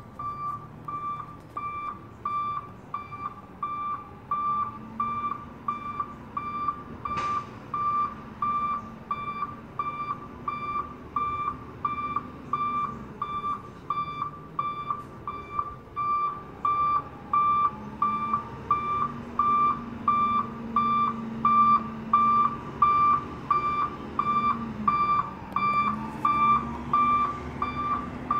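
Garbage truck's back-up alarm beeping steadily at one pitch, about one and a half beeps a second, over the truck's diesel engine running, its pitch rising and falling.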